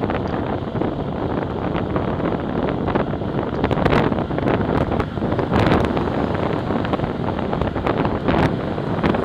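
Wind buffeting the microphone of a Cycliq bike camera while riding, a steady rushing noise with scattered small clicks and rattles. A car passes close by in the middle, adding a swell of tyre and engine noise.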